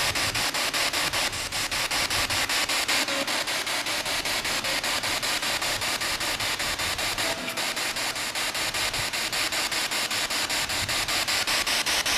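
Spirit box sweeping through radio stations, played through a small handheld speaker: a steady hiss of static chopped into rapid, even pulses several times a second.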